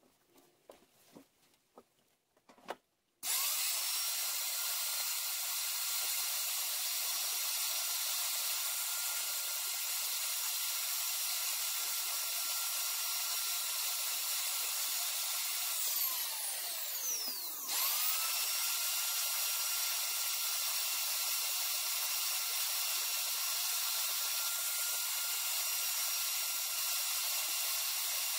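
Electric plunge router starting up about three seconds in and running with a steady high-pitched whine as it cuts into a wooden slat. A little past halfway it winds down, falling in pitch, then starts up again and runs on steadily.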